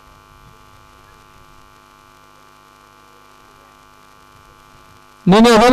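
Steady electrical mains hum in the broadcast audio, made of many steady tones with no other sound over it. About five seconds in, a man's commentary voice cuts in loudly.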